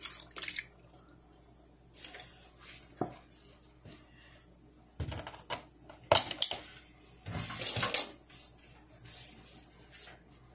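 Beef broth pouring into a crock pot over pierogies, stopping about half a second in. Scattered knocks and clatter of kitchenware being handled follow, loudest near the middle and about eight seconds in.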